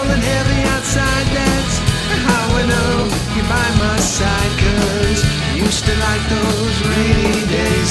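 Rock trio playing an instrumental section: distorted electric guitar, bass guitar and drum kit with cymbals. The guitar plays wavering, bending notes over a steady beat.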